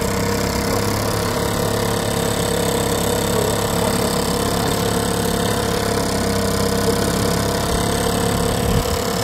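Small two-horsepower two-stroke outboard motor running at a steady speed, its pitch holding constant.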